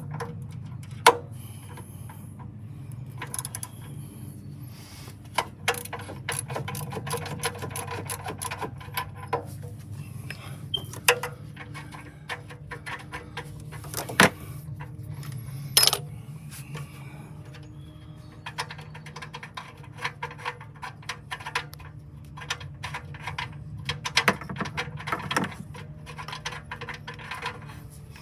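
Metal tools clicking and clinking as the oxygen sensor is unscrewed from the exhaust with a 7/8-inch oxygen-sensor socket and ratchet, over a low steady hum.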